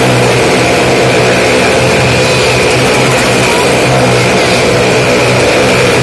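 Motorcycle engines running loud and steady as two motorcycles circle the vertical wooden wall of a well-of-death pit, with no break or change in the sound.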